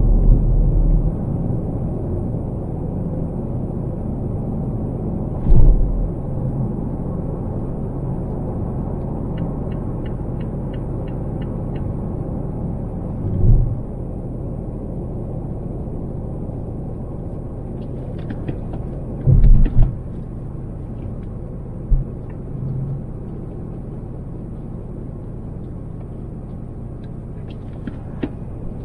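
Steady road and tyre noise of a car driving on an expressway, heard from inside the cabin. Several short low thumps break through it, one of them doubled. A faint rapid ticking runs for a couple of seconds about ten seconds in.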